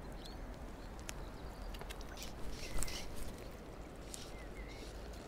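Steady low rush of a stream, with a few faint short bird chirps and several light clicks.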